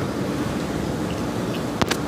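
Steady low engine hum with wind and water noise, and two quick sharp knocks close together near the end.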